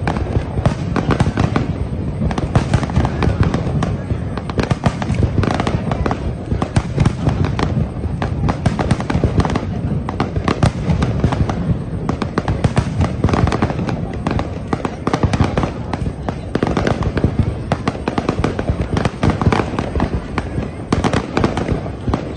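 Fireworks bursting in a dense, unbroken barrage: many sharp bangs and crackles a second, over a constant rumble.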